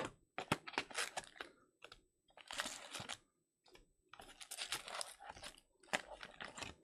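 Crinkling, tearing and clicking of trading-card packaging being handled and opened, in several short crackly bursts with sharp clicks between them.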